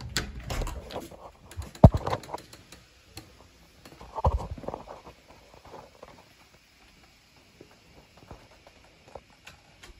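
A front door being opened and shut, with footsteps and handling noise stepping out onto a concrete porch. A sharp knock comes about two seconds in and a duller thud a little after four seconds, then only light scattered ticks.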